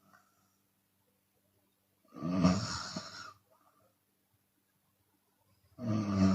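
A woman snoring with her mouth open: one snore about two seconds in, lasting about a second, and the next starting near the end.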